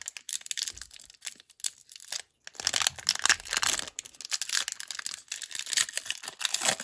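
Foil Pokémon booster pack wrappers crinkling and tearing open in irregular crackles, with a brief pause about two seconds in.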